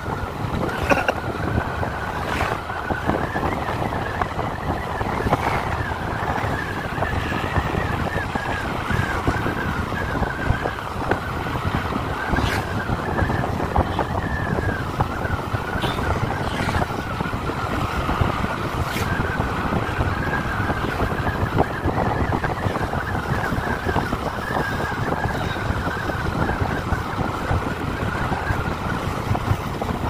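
Wind buffeting the microphone over the steady running noise of a moving vehicle, with a few faint clicks.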